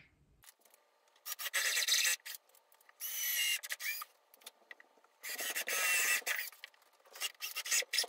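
Cordless drill with a number 8 countersinking bit boring countersunk screw holes into wooden joists: three bursts of about a second each, then a few shorter ones near the end.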